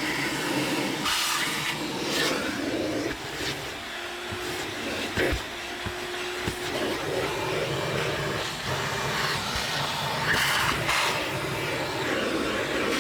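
Carpet floor mats being handled and fitted into a car's footwell: continuous rustling and scraping of the mat fabric against the floor carpet, the Velcro-like backing catching as it is pressed down, with a few light clicks.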